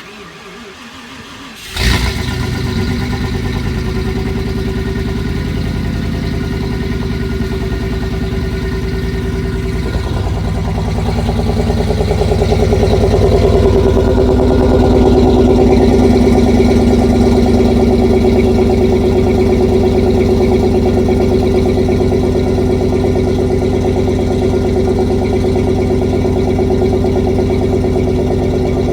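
Ford 351 Windsor V8 with Super 10 mufflers and no catalytic converters cold-started below zero: the starter cranks for about two seconds, the engine catches with a bark, then settles into a steady fast cold idle that gets a little louder about a dozen seconds in.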